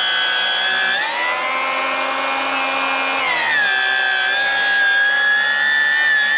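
Milwaukee M18 cordless table saw ripping a rough-sawn 2x4 stood on edge, the blade at full height, with a steady motor whine and blade noise. The pitch rises about a second in, then drops back about three seconds in as the motor bogs under load, but the saw does not stall.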